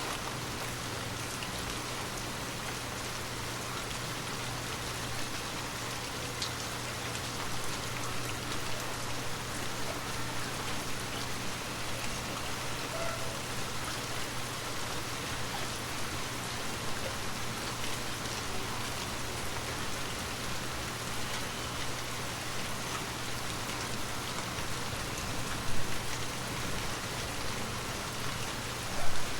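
Gentle rain falling steadily on a surface, an even patter of drops with a steady low hum beneath it. Two louder sharp taps come near the end.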